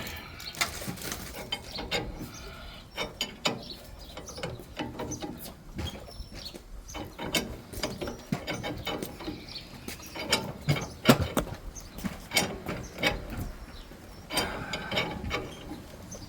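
Hand ratchet wrench clicking in short, irregular runs as a fastener on the Raptor's front suspension is run down, with scattered metal-on-metal clicks and knocks from the tools.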